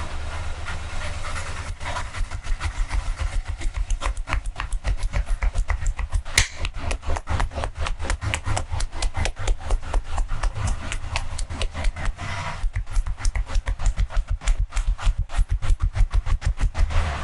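Rapid, rhythmic percussive massage strikes from a barber's hands, about six slaps a second, with a short break about twelve seconds in. Before the strikes begin there is a softer rubbing sound.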